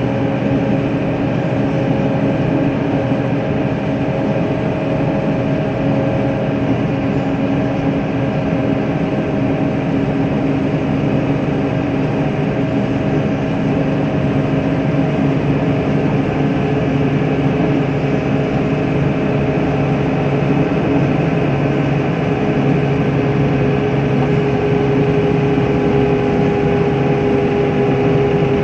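Tractor engine running steadily under load while pushing a front-mounted snow plow, a continuous drone with held tones; one tone drops a little in pitch just past halfway through.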